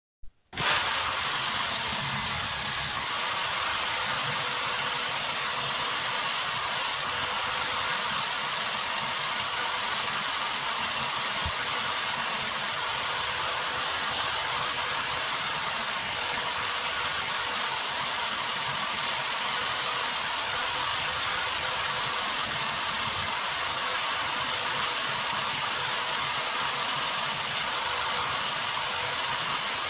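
Electric drill running at a steady speed, spinning a wire wheel that a small metal plate is held against to wire-brush it clean. The motor starts about half a second in, then runs evenly with a faint high whine over the scratchy brushing.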